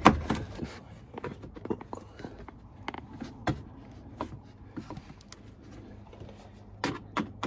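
Scattered light clicks, taps and knocks of hands handling parts under a car during an oil change, with a few sharper knocks about three and a half seconds in and near the end.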